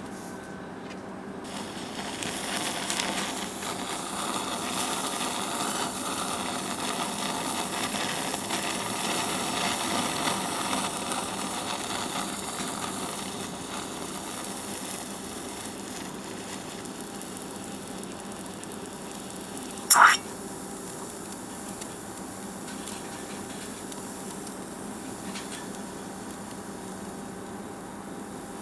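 Senko hanabi, a Japanese hand-held sparkler, sizzling and crackling as it throws sparks. The crackle builds over the first few seconds, is fullest around ten seconds in, then dies down to a faint hiss. One short, sharp sound about twenty seconds in.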